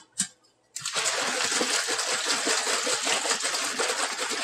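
Water and undissolved Borax powder sloshing and rattling in a sealed container shaken hard and fast, being mixed into a saturated solution. After a brief click and a short silence, the shaking starts about a second in and keeps going steadily.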